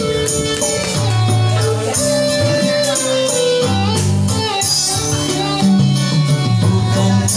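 Dangdut music playing with a steady beat: held melody notes over a moving bass line and regular percussion.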